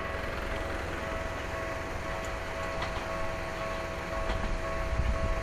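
Electric train on the Ueda Electric Railway line: a steady whine with scattered faint ticks, and a low rumble that grows near the end as the train comes closer.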